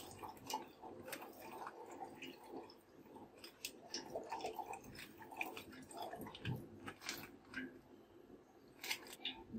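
Faint trickle and splash of milk pouring from a squeezed plastic pouch into a pot, with scattered small crinkles and clicks from the pouch.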